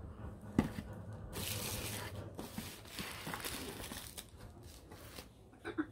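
Plastic wrapping and bubble wrap crinkling and rustling as a wrapped cosmetic jar and product boxes are handled and set down, with a sharp knock about half a second in.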